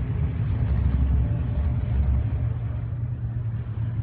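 Steady low rumble of car engines from the adjacent racing circuit.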